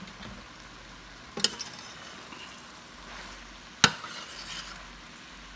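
Cabbage and sausage sizzling faintly in a stainless steel skillet, with two sharp clinks of a spoon against the pan, one about a second and a half in and a louder one near four seconds as the stirring begins.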